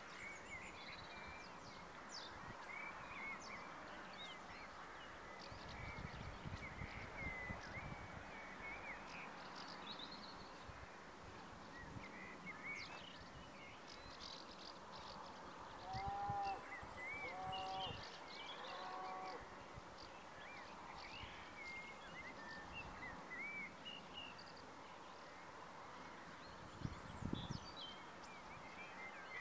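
Several small birds chirping on and off, faintly, over a steady background hiss. About halfway through, a larger bird gives three or four louder calls in quick succession.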